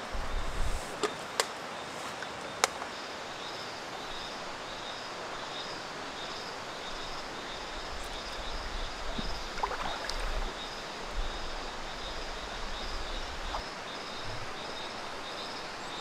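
Stream water flowing steadily, with insects chirping in an even, rapid pulse over it. There are a few sharp clicks in the first three seconds and a low rumble in the middle.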